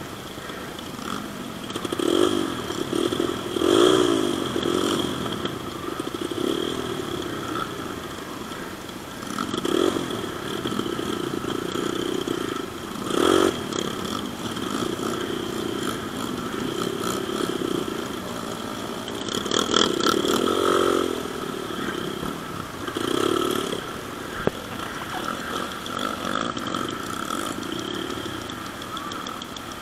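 Off-road motorcycle engines revving, the sound swelling and falling away in repeated surges.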